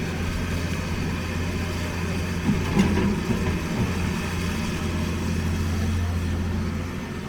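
Heavy diesel engine of earthmoving machinery running steadily at a low, even pitch, with one short knock or clank a little under halfway through.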